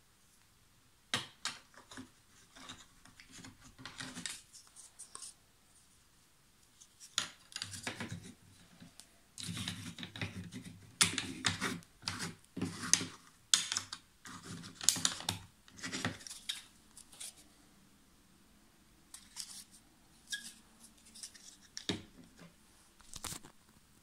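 A Zippo lighter being fitted into its hard plastic presentation box and the box closed: a string of sharp clicks, scrapes and rubbing of plastic and metal, densest in the first two-thirds, then a few scattered clicks near the end.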